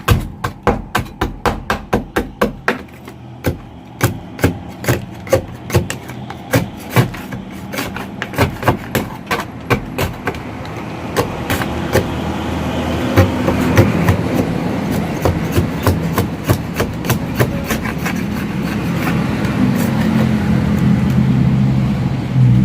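Repeated hammer blows, about three to four a second at first and then more irregular. From about halfway a vehicle engine hum rises under them and grows louder toward the end.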